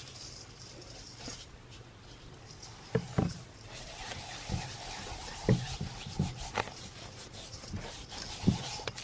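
Hands rubbing a curing spice mix into raw pork belly chunks, with several dull thumps of meat against a surface from about three seconds in.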